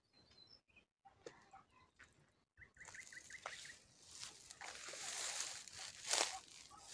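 Small birds chirping faintly. From about three seconds in, leafy black locust branches rustle close by, with a few sharp twig cracks; the loudest crack comes about six seconds in.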